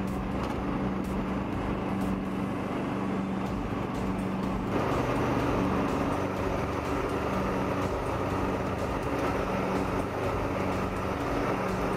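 Craftsman LT lawn tractor engine running steadily as the tractor drives across the lawn on its chained rear tires. About five seconds in, a louder rushing noise joins the engine hum.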